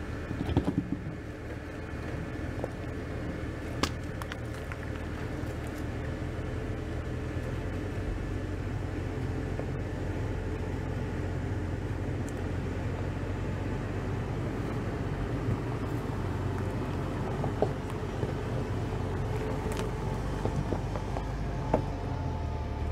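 Toyota Tundra pickup's twin-turbo V6 running at low speed while crawling over rocks, a steady low hum, with a few short sharp knocks along the way.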